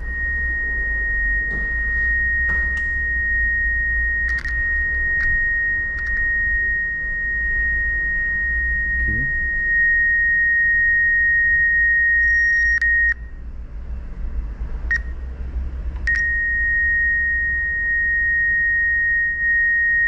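Ground Zero GZRT 25SQ car-audio tweeter, wired through an inline capacitor, playing a steady test tone of almost 2 kHz from a tone generator. The tone cuts out about two-thirds of the way through, sounds one short blip, and comes back a second later, with a few faint handling clicks over a low hum.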